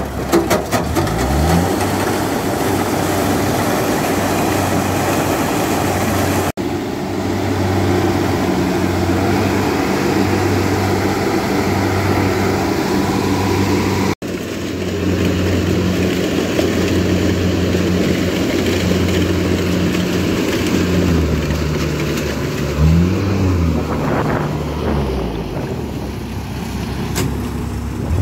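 Kubota DC-68G combine harvester's diesel engine running steadily as the machine churns through canal water, with water splashing around it. The engine speed rises and falls briefly twice, about 23 seconds in and near the end.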